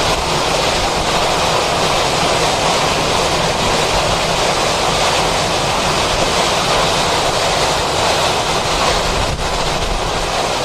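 Hurricane-force wind blowing hard, a loud steady rush with wind buffeting the microphone.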